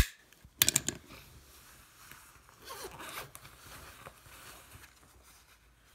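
Small pocket items being handled: a sharp click right at the start, a quick cluster of clicks under a second later, then a stretch of rasping, zipper-like rustling.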